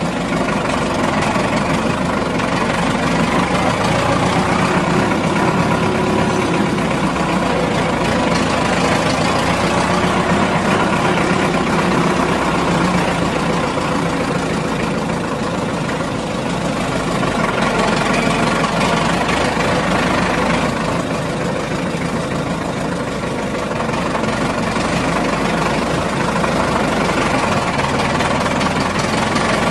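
A heavy truck engine idling steadily, with no break.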